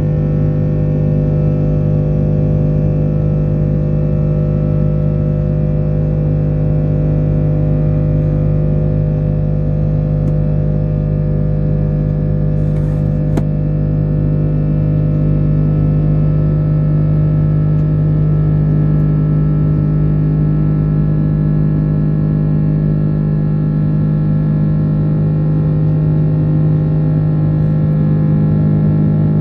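Airbus A330-300's twin Rolls-Royce Trent 700 turbofans heard from inside the cabin at climb power: a steady low drone with a set of unchanging hum tones over a rushing hiss of airflow.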